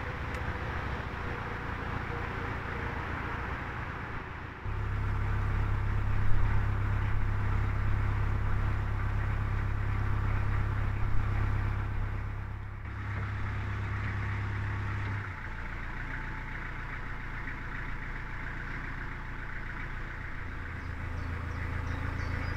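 Narrowboat's engine running steadily while the boat cruises, getting louder about four and a half seconds in and dropping back about ten seconds later.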